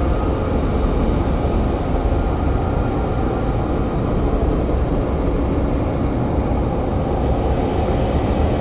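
Experimental noise-drone music: a dense, steady rumbling wash of noise, heaviest in the bass.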